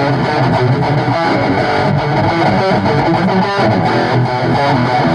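Rock band playing with a distorted electric guitar, the music going on steadily without a break.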